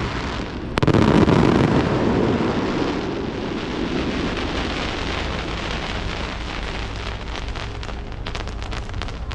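Aerial fireworks: a loud burst about a second in, followed by a long, dense crackle that slowly fades, with scattered sharp crackles near the end.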